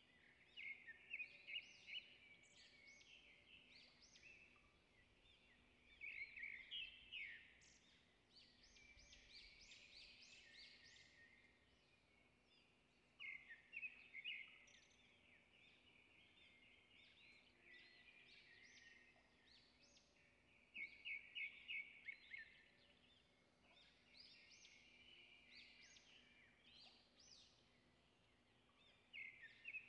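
Faint bird chirping: short phrases of quick high notes and trills every few seconds, over a low steady hum.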